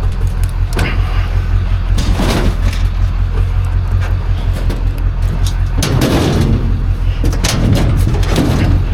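A vehicle engine idling steadily, with several short metal clanks and rattles over it, about a second in, around two seconds in, and twice more in the second half.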